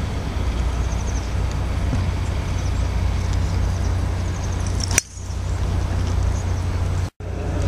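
A golf club striking a ball: one sharp crack about five seconds in, over a steady low background rumble. The sound cuts out for an instant near the end.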